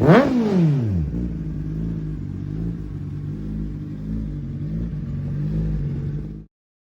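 Kawasaki Ninja ZX-10R inline-four through an Akrapovič exhaust, blipped once to a sharp rev that falls straight back, then settling into a steady idle. The sound cuts off abruptly near the end.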